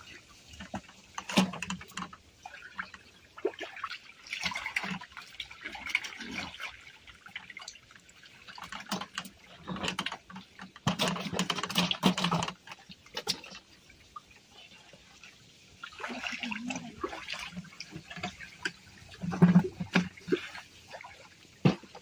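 Shallow stream water splashing and sloshing in irregular bursts as a man wades through it and grabs at fish by hand, with the biggest splashes about halfway through and again near the end.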